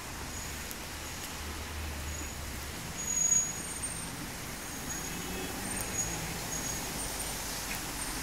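Steady road traffic noise, a low rumble with a brief louder swell about three seconds in.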